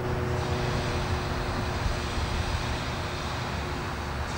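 Four-wheel tram rolling slowly along the track toward the listener, a steady low rumble from its wheels and running gear.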